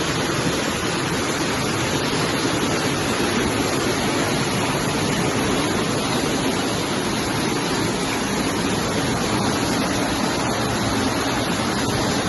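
Steady, loud rush of water from heavy rain and flooding, with no breaks.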